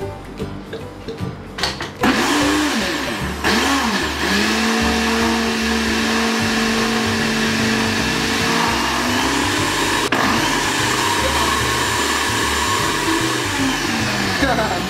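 Electric countertop blender whipping thickened cream. It starts about two seconds in and runs on steadily; the motor's pitch wavers and dips a few times at first, holds, then rises a little partway through.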